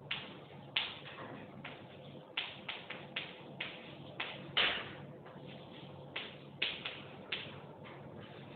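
Chalk tapping and scraping on a blackboard as words are written: a dozen or so short, irregular strokes, the loudest about four and a half seconds in.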